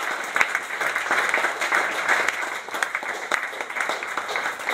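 Audience applauding, many hands clapping at once, easing slightly near the end.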